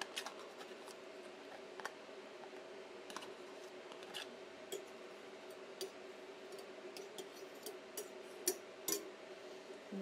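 Scattered light clicks and taps at irregular intervals, from scraping vegetable shortening out of a measuring cup into the mixer bowl, over a faint steady hum.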